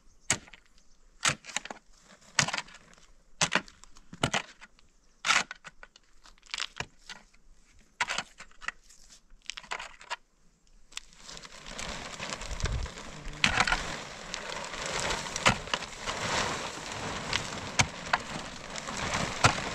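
A pick striking into stony soil, about once a second, each blow a sharp separate hit. From about eleven seconds in, a large plastic sheet is handled and spread out, crinkling and rustling continuously.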